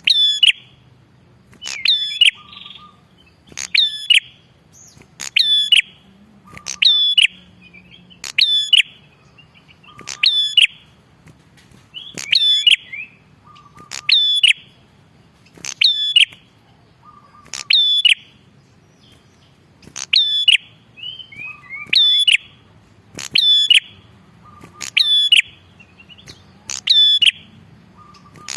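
Prenjak kepala merah calling loudly: the same short, sharp phrase repeated about every second and a half to two seconds, a lure recording for attracting wild prenjak.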